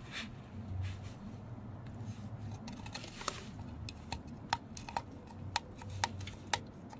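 Light, sharp clicks from a fingertip and nail working over the cylinder wall of a BMW M50B25 engine block, about ten at uneven spacing from about three seconds in, some with a brief metallic ring.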